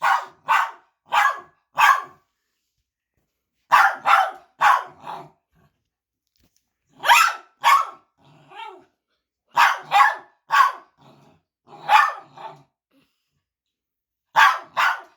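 Dog sneezing over and over in quick runs of two to four sharp sneezes, with short pauses between runs.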